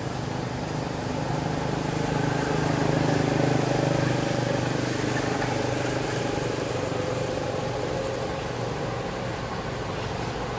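A motor vehicle's engine passing by: a steady hum that swells to its loudest about three seconds in, then eases off.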